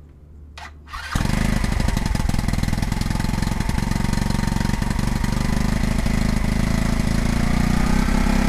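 Bailey 175 paramotor's single-cylinder four-stroke engine catching about a second in, then running steadily on a test run to check a leak that has been closed with a temporary clip.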